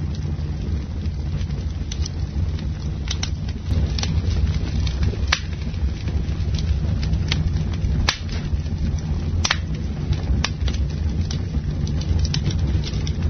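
Campfire burning, with a steady low rumble under frequent irregular crackles and sharp pops.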